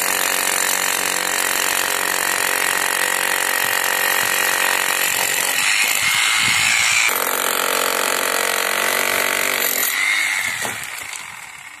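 Corded electric hammer drill breaking into the edge of a concrete slab, its motor and hammering running steadily. About ten seconds in it is switched off and winds down.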